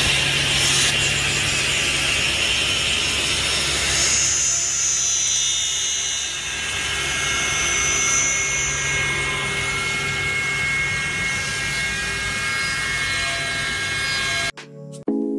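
Table saw cutting a cove: the spinning blade shaves wood from a board fed at an angle across it, giving a steady, noisy whir of blade through wood. It cuts off suddenly near the end.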